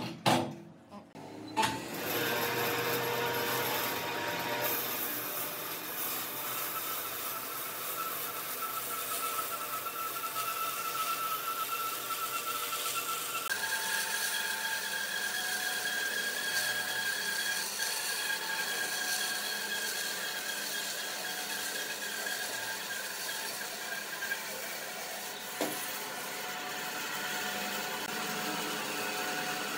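Electric power tool running on wood: a steady motor whine with cutting noise, which jumps to a higher pitch about halfway through. A few sharp knocks come at the start and one more near the end.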